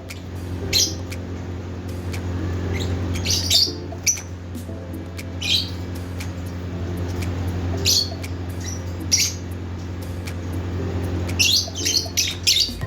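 Lovebirds giving short, sharp chirps and squawks every second or two, with a quick run of calls near the end, over a steady low hum.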